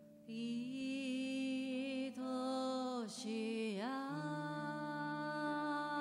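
A woman singing a slow melody in long held notes, dipping down in pitch and back about three to four seconds in, over soft sustained accompaniment chords.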